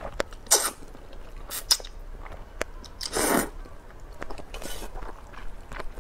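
Rice noodles slurped up from a bowl of hot broth: short, airy sucking slurps about half a second in and about three seconds in, the second the loudest, with a fainter one near the end and small wet mouth clicks of chewing between them.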